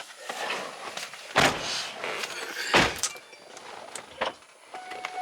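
Doors of a 2009 Chevy Tahoe shutting with two heavy thuds, about a second and a half and three seconds in, among smaller clicks and knocks as people climb in. A steady electronic chime tone starts near the end.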